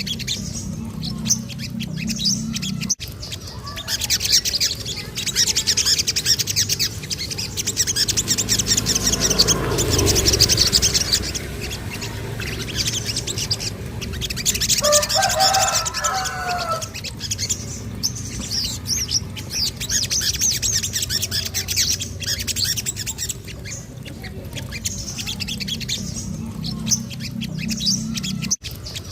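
Little spiderhunter (sogon) song: fast, high-pitched rolling chatter and trills that swell and fade, with a short lower warbled phrase about halfway through. A sharp click about three seconds in and another near the end.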